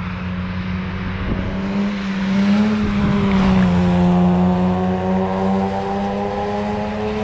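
A car passes on the race track, loudest about three to four seconds in. Its engine note dips in pitch as it goes by, then climbs steadily as it accelerates away.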